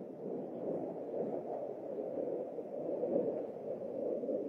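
Jet engine noise from a JF-17 Thunder's single Klimov RD-93 turbofan during a flying display: a steady, muffled rumble with no distinct events.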